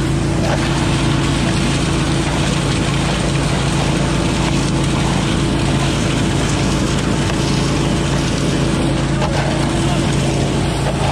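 A 20 hp Billy Goat leaf vacuum running steadily at a constant engine speed, with a broad rush of air through its intake hose as leaves are fed to the nozzle.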